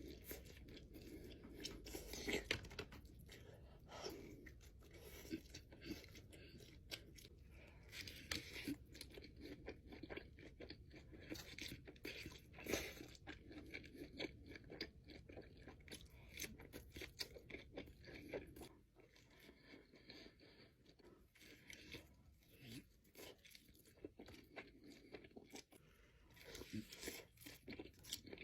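Close-up eating sounds: a person chewing and crunching food, with many small wet mouth clicks and crackles, a little softer from about two-thirds of the way in.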